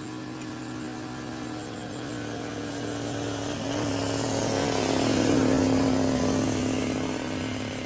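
A motor vehicle engine passing by: a steady engine note grows louder to a peak about five seconds in, dropping slightly in pitch, then fades.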